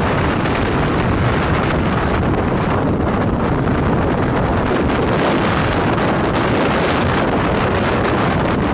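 Strong wind buffeting the microphone: a loud, steady rush of noise heaviest in the low end, with no let-up.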